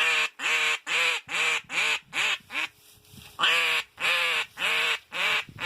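Loud, harsh mallard quacking in the descending cadence of a hen mallard. It comes as a run of about eight quacks that get shorter and quicker, a short pause, then about five longer quacks.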